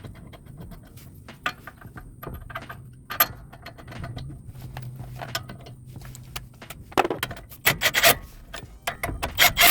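Hand tools on a truck's brake caliper: a socket wrench tightening a caliper bolt, with irregular metallic clicks and clinks that come thicker in the last few seconds.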